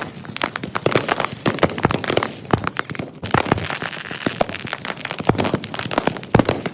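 Consumer fireworks going off in rapid succession, dense overlapping bangs and crackles with no gaps between them. The recording is sped up three times, which packs the bangs closer and raises their pitch.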